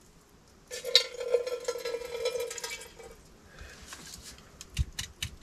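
Water poured from a partly frozen plastic bottle into a stainless steel pot, running for about two seconds. Then come a few light clicks and knocks as the bottle is handled.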